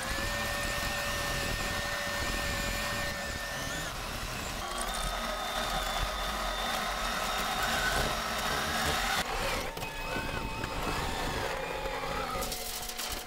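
Kubota SVL75 compact track loader's diesel engine running under load, heard from inside the cab, with a steady whine that jumps to a new pitch a few times as the machine works.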